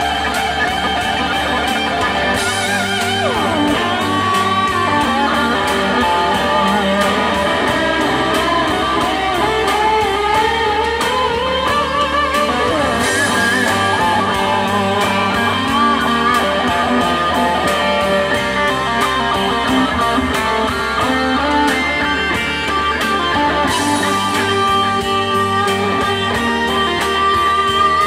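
Kramer Assault electric guitar playing an improvised lead in G minor over a country-rock backing track with a steady drum beat, its notes gliding up and down in pitch.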